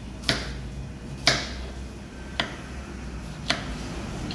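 Chef's knife slicing an eggplant on a plastic cutting board: four sharp knocks of the blade striking the board, about one a second, over a low steady hum.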